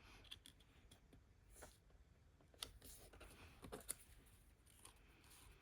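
Near silence with a few faint taps and rustles of paper and card being handled at the craft table.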